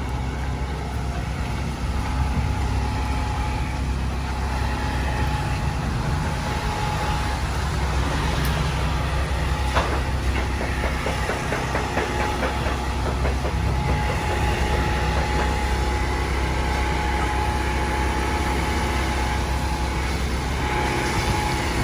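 Steady low rumble of street traffic, with a faint steady tone and a run of light clicks about ten to fourteen seconds in.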